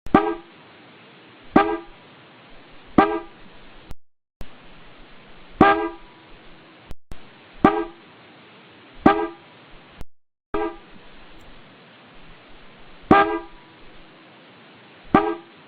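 The factory horn from a Y31 Nissan Cima, sounded off the car in eight short toots at uneven gaps of one to four seconds, each a single pitched tone.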